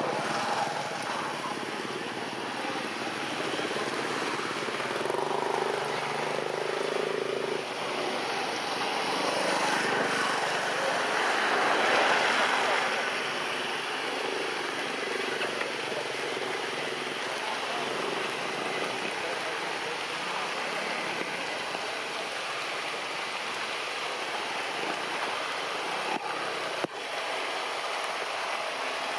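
Steady rain falling on the forest canopy, an even hiss that swells briefly about halfway through.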